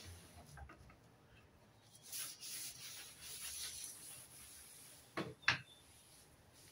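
Cloth wiping a slatted wooden table top with a soft rubbing swish, then two sharp knocks a little after five seconds in as a ceramic planter is set back down on the wood.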